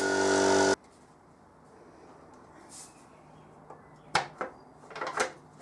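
Aerosol paint spray can hissing with a whistling tone, cutting off abruptly under a second in. After it, a few sharp knocks about four and five seconds in.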